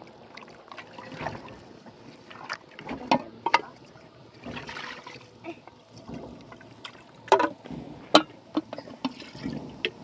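Irregular knocks and clatters of things being handled, a few sharp ones standing out in the second half.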